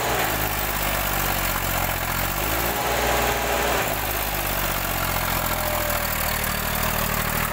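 Tractor diesel engines running, the engine note rising and falling around the start and again about three seconds in.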